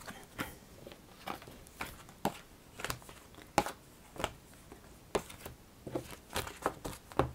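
Oracle cards being picked up off a cloth-covered table and squared into a deck: short, irregular taps and flicks of card on card, roughly two a second.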